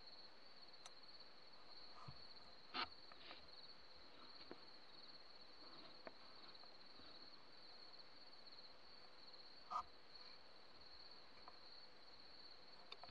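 Faint, steady high-pitched chirping of crickets in the field at night. Two brief clicks stand out about three seconds in and near ten seconds.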